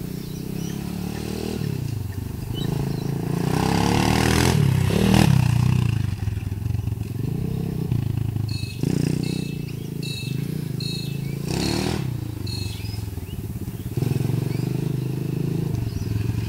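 A 140cc Thumpstar pit bike's single-cylinder four-stroke engine revs up and down as the bike is ridden around. It gets louder toward a sharp rev about a third of the way in, and revs hard again a little past two-thirds.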